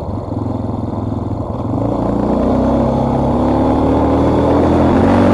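Motorcycle engine running while riding, its pitch climbing slowly from about two seconds in as the bike picks up speed.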